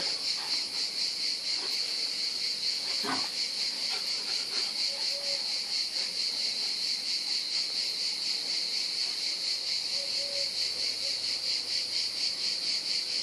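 Crickets chirping in a steady, fast-pulsing high trill, with a faint single knock about three seconds in.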